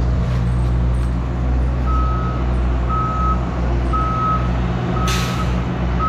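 Avant compact loader's engine running steadily under load, with its reversing alarm beeping about once a second from about two seconds in. A short loud hiss comes about five seconds in.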